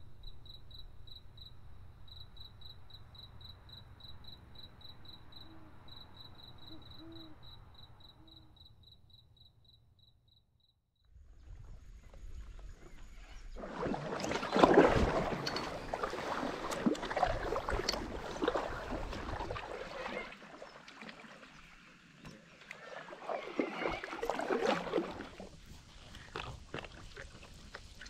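For the first third, a high, rapidly pulsing insect call sounds over quiet bush. About halfway through, paddle strokes start splashing and sloshing in the river water close to the microphone, and these strokes are the loudest sound.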